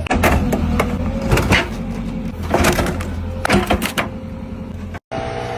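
A steady low machine hum with several sharp knocks or clanks, cutting off abruptly about five seconds in.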